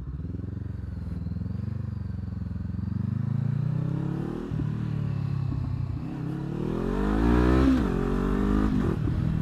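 Honda CBR500R parallel-twin engine under way, heard from the rider's position: low, steady revs at first, then accelerating hard with the pitch climbing steeply about six and a half seconds in and dropping sharply at gear changes near the end.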